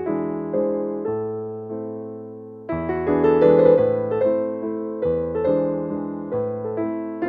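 Background piano music: a gentle melody over chords, each note struck and fading, growing louder from a little under three seconds in.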